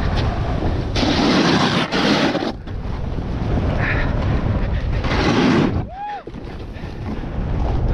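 Snowboard edge scraping over hard-packed halfpipe snow in two long rasping bursts, one with each wall turn, over a steady rumble of wind on the microphone.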